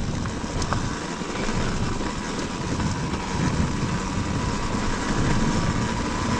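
Dirt bike engine running while the bike is ridden over a rough off-road track, with a steady, uneven rumble of wind and road noise on the rider's microphone.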